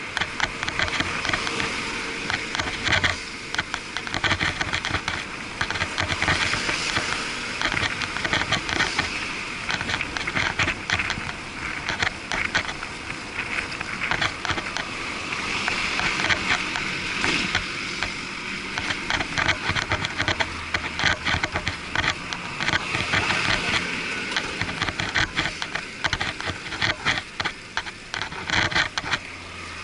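A bicycle riding fast along a city road, heard muffled through an action camera's waterproof housing: constant irregular rattling and clicking from road vibration over a steady rush of wind and traffic.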